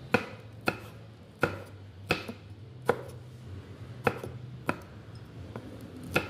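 A knife slicing large green chilies on a wooden cutting board: about eight sharp knocks of the blade striking the board, unevenly spaced at roughly one a second or a little faster.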